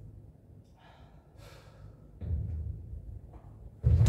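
A pitcher's feet thudding low on a raised portable pitching mound during his wind-up, ending in a sudden louder thud near the end as the stride foot lands in the delivery.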